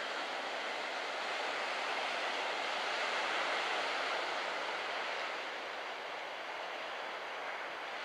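Steady rushing wash of surf breaking along a sandy beach, swelling a little around the middle and easing toward the end.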